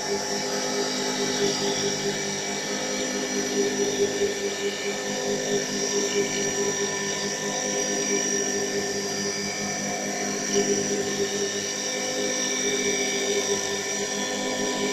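CA-160 mini CNC wood lathe running, its spindle and drive motors giving a steady whine of several held tones as the cutter turns a small wooden pen blank.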